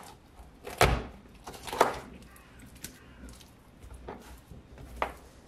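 A large kitchen knife cutting through raw chicken pieces and knocking against a plastic cutting board. There are two sharp knocks about a second apart in the first two seconds, fainter taps between, and one more knock near the end.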